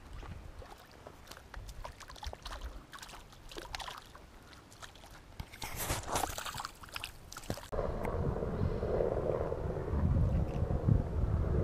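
Shallow lake water splashing and sloshing as a caught trout is handled at the shoreline and held in the water by hand. A burst of splashing comes about six seconds in, after which a louder, steady low rushing sets in.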